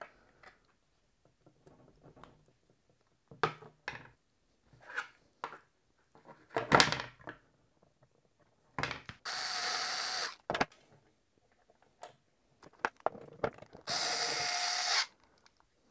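Cordless drill driving machine screws into a 3D-printed plastic clamp block in two short, steady runs of about a second each, about nine seconds in and again near the end. Before them, light clicks and knocks of the plastic and metal parts being handled.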